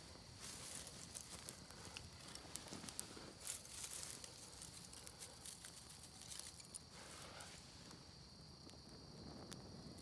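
Small dry-grass tinder fire crackling faintly with scattered sharp pops, along with the rustle of dry grass stems being pushed together into it.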